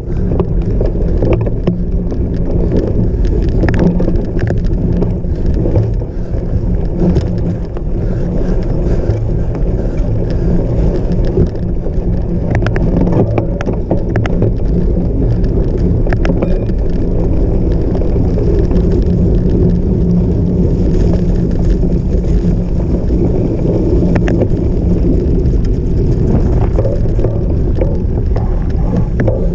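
Cyclocross bike ridden over rough off-road ground: a loud, steady rumble of tyres and frame vibration, with frequent short rattles and clicks throughout.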